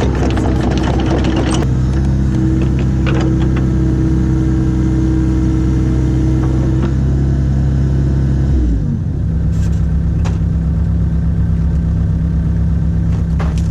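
IHI 80NX excavator's diesel engine running at a steady speed, then about two-thirds of the way through it drops quickly to a lower steady idle.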